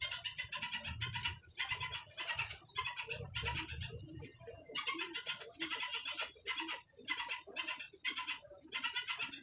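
A bird calling in quick, rattling chatter bursts, about two a second without a break.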